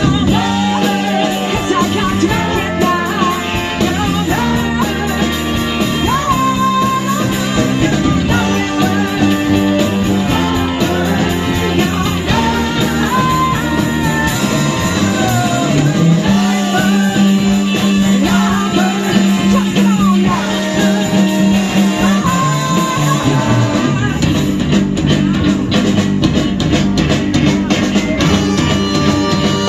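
Live soul band playing with lead vocals: driving rhythm with bass, guitar and singing.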